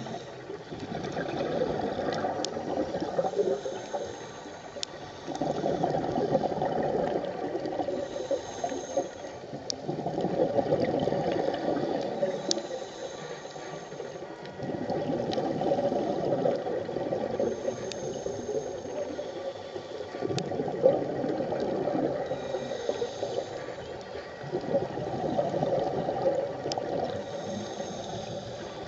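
Scuba diver breathing through a regulator underwater: a bubbling rumble of exhaled air about every five seconds, about six breaths in all, with a faint hiss of inhalation between them and a few sharp clicks.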